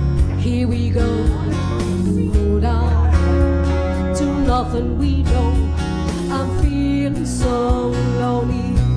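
Live band music: strummed acoustic guitars with keyboard, playing a song between sung lines.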